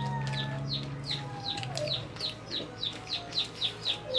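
A bird chirping rapidly and repeatedly, about four to five short falling chirps a second, over a low hum that fades out about two seconds in.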